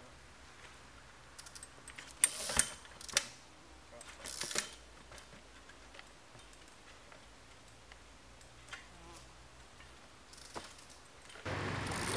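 Trials bike hopping up rocks: a few sharp knocks of the tyres and bike striking stone about two to three seconds in, a short scrape a second later, and scattered light mechanical clicks. Near the end a loud steady rushing noise sets in.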